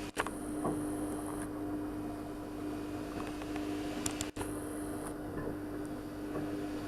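A steady hum with a constant pitch over room tone, broken by a sharp click with a brief dropout at the start and another about four seconds in.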